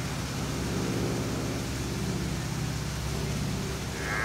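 A low, steady engine hum. A short, higher call begins near the end.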